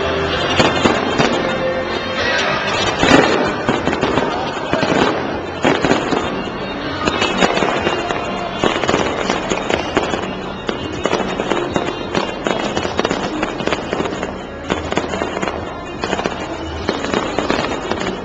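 Fireworks display: shells bursting and crackling in a dense, continuous run of bangs, with the loudest burst about three seconds in, over music played along with the show.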